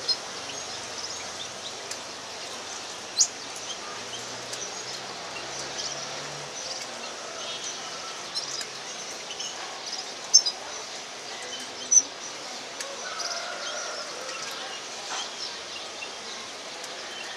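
Red crossbill feeding at a cypress cone: a few short, sharp, high-pitched ticks, about three seconds in and twice more near ten and twelve seconds, over a steady background hiss.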